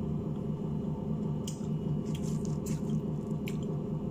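A steady low machine hum, with a few light crackles and rustles as crispy fried chicken is handled on a paper towel.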